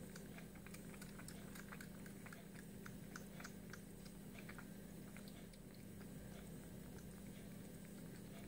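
Ginger kitten suckling at a small nursing bottle: faint, irregular wet clicks and smacks from its mouth on the teat, over a steady low hum.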